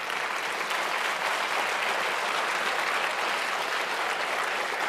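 Audience applauding: many people clapping together, holding steady and even.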